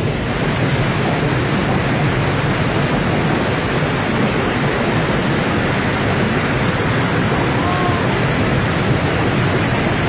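Steady rush of water from the river rapids and spraying water jets around a ride raft.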